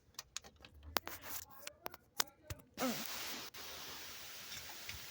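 Scattered sharp clicks and light taps of handling, like things being moved while rummaging around, with faint voices underneath. About three seconds in these give way to a steady hiss.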